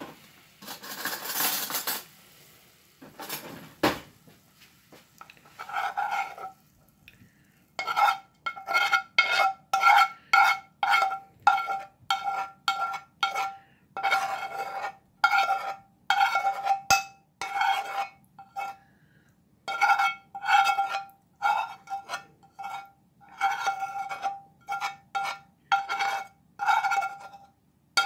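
A spoon scraping and knocking against a skillet as the reduced gravy is scraped out of it. Each stroke sets the pan ringing, and the strokes come in a quick run of about two a second through most of the stretch.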